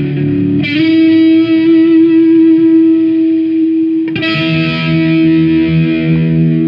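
Electric guitar playing a riff: a chord struck under a second in and left to ring, then another struck about four seconds in and ringing on.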